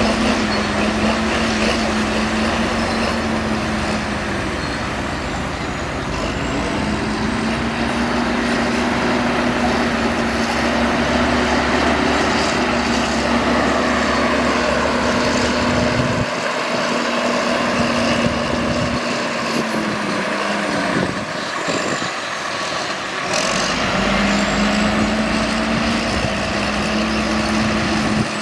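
Heavy diesel earthmoving machinery engine running steadily under load, its pitch sagging and recovering twice, about a third of the way in and again near the end.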